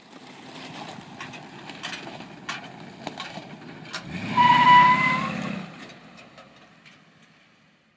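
Ford 302 V8 in a 1936 Ford pickup accelerating away, its engine getting louder to a peak about four seconds in, with a brief high-pitched squeal over it, then fading as the truck drives off. A few sharp clicks come before the peak.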